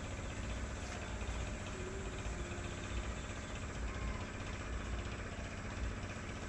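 Boat engine running steadily with a deep, even drone.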